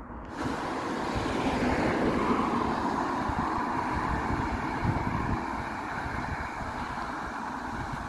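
Road traffic: a passing vehicle's engine and tyre noise, building over the first two seconds or so and then slowly fading.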